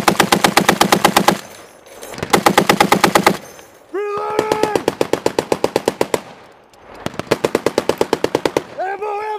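M2 Browning .50 caliber heavy machine gun firing close to the microphone in four bursts of about two seconds each, every burst a steady string of heavy shots at roughly nine a second.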